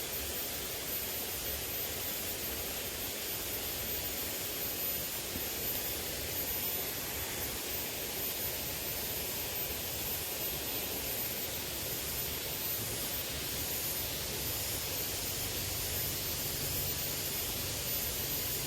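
Steady rushing hiss of a small river's flowing water, even and unbroken.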